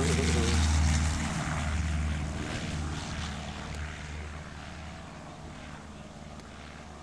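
Cessna 152's four-cylinder piston engine and propeller at full power as it takes off again after touching down. It lifts off and climbs away, its drone fading steadily.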